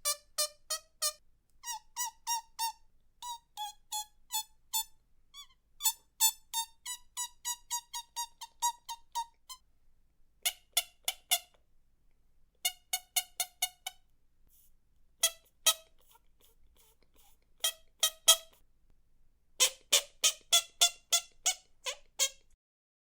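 Bird-like animal chirps: short, squeaky, pitched notes repeated in quick runs of about three or four a second, broken by brief pauses.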